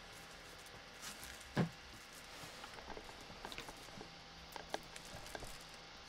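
Faint handling sounds in a small room: scattered light taps and rustles, with one sharper tap about a second and a half in.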